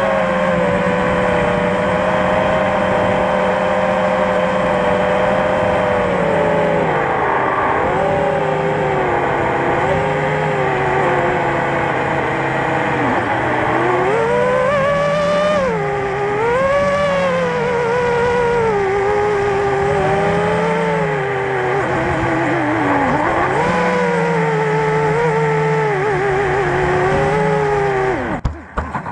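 FPV quadcopter's motors and propellers whining, the pitch rising and falling as the throttle changes, then cutting out suddenly near the end as the drone lands and its motors stop.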